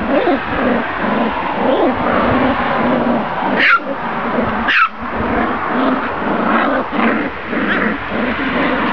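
Border collie puppies playing, making a run of small growls and whines. Two short, high-pitched yelps come about four and five seconds in.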